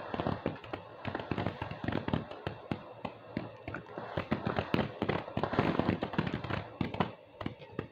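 Small consumer fireworks crackling: a dense run of rapid sharp pops that thins out and stops near the end.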